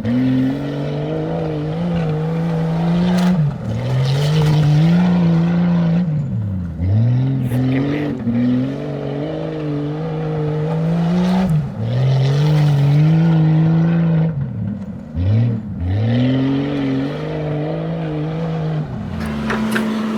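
A motor running hard at a high, steady pitch, dropping off sharply and spinning back up about six times.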